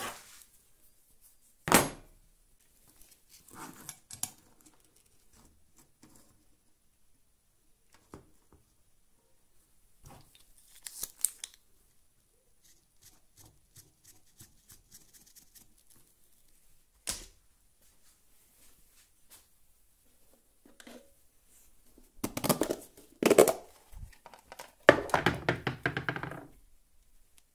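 Tools and metal parts being handled on a workbench: scattered clicks, knocks and rustles with quiet gaps between, a sharp knock about two seconds in, and a dense run of clattering with some ringing near the end.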